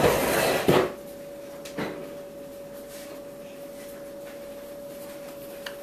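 A short burst of rustling or handling noise ending in a clack, then a quiet room with a steady faint hum and a couple of light knocks.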